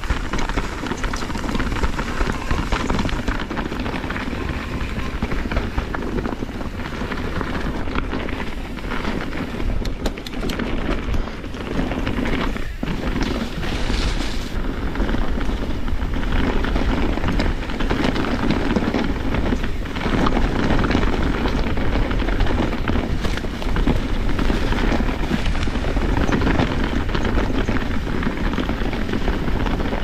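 Kona Process X mountain bike descending rough singletrack at speed: wind buffeting the action camera's microphone over the hiss of tyres on dirt and rock, with the bike knocking and rattling over bumps.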